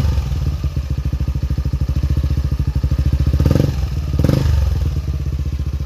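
Yamaha NMAX version 2 scooter's single-cylinder four-stroke engine idling through a VMAX aftermarket exhaust pipe with a steady pulsing beat, with two short throttle blips about halfway through.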